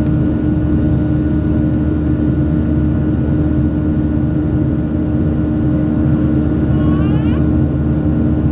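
Steady cabin drone of a Boeing 737-700's CFM56 turbofan engines, a loud even hum with a constant tone that neither rises nor falls. A short high-pitched sound cuts in briefly about seven seconds in.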